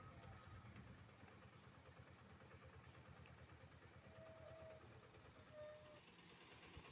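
Faint engine of road-paving heavy equipment running steadily at low revs.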